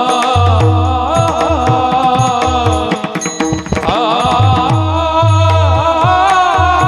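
Marathi kirtan tune: a devotional melody sung over drum strokes and a held drone, with the accompaniment briefly thinning in the middle.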